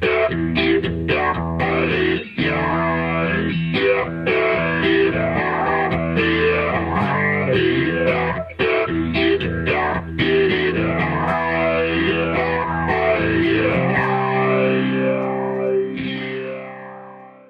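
Guitar played through a Source Audio Soundblox 2 Stingray Multi Filter pedal, the filter sweeping up and down over and over across held notes. The notes fade out near the end.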